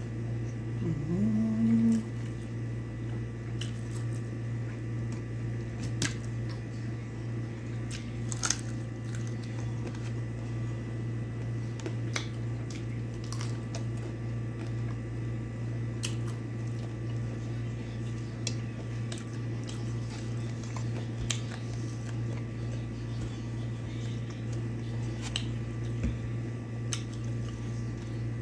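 A person eating rice and chicken by hand: scattered wet chewing and lip-smacking clicks over a steady low hum. About a second in comes a short hummed "mmm" that rises in pitch and then holds.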